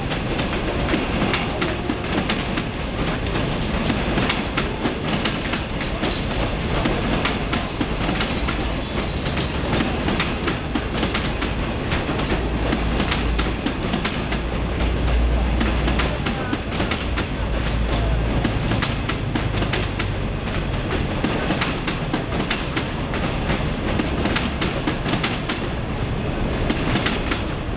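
China Railway 25T passenger coaches rolling past on steel rails: a steady wheel-on-rail rumble dotted with quick clickety-clack clicks as the wheels run over the track.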